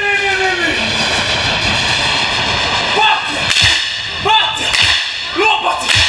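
A male performer's long held shout that falls away, then short group shouts with sharp hand claps between them, in a Pacific Island group performance.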